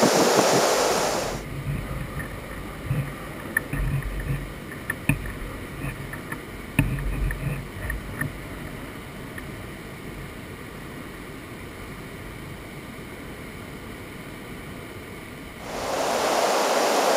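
Kayak on the move, heard through a housed action camera: irregular low knocks and splashes of the paddle and hull for several seconds, then a steady faint hiss. A loud steady rush of wind and water is heard for the first second or so and comes back near the end.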